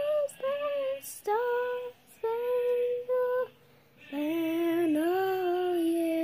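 A young girl singing a wordless tune in a high voice, holding steady notes. Several short notes come first, then a brief pause, then a longer unbroken phrase from about four seconds in.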